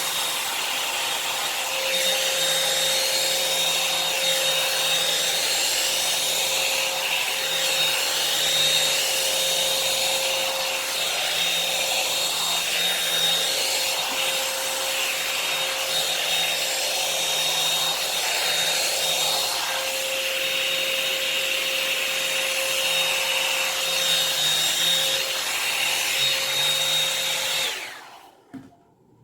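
Revlon hot-air dryer brush running steadily, its blowing air carrying a constant motor whine, then cutting off suddenly near the end.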